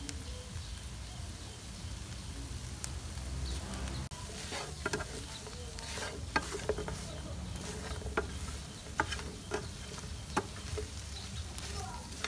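Chicken pieces sizzling in a frying pan as a wooden spatula stirs them, with sharp scrapes and knocks of the spatula against the pan from about four seconds in. A low steady rumble runs underneath.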